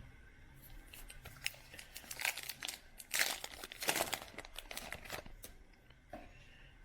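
Crinkling of a card pack's plastic-foil wrapper being handled, in a run of irregular crackles that are loudest about halfway through and die down near the end.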